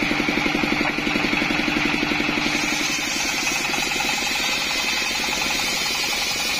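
Single-cylinder diesel engine running steadily, driving a circular saw blade as it rips a split coconut-palm trunk lengthwise. A higher hiss comes in about two and a half seconds in.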